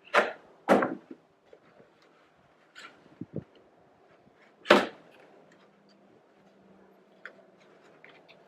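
Plastic trunk trim clips and plugs snapping loose as they are pried out with a trim tool: two sharp snaps in the first second, another about five seconds in, and lighter clicks between.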